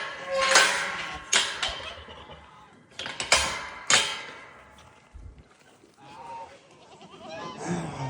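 Goats bleating among several sharp knocks and clatters in the first four seconds, then a couple of shorter wavering calls near the end.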